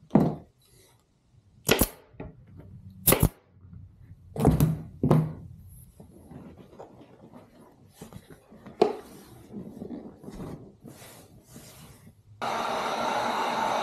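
Staple gun firing staples through a vinyl seat cover into a jet ski seat base: a series of sharp shots over the first nine seconds, with vinyl rustling as the cover is handled between them. Near the end a heat gun switches on with a steady blowing hiss.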